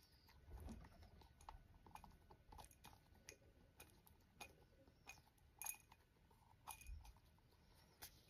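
Rock pigeon pecking seed mix from a glass jar: faint, irregular clicks of its beak striking the seeds and the glass, about two or three a second.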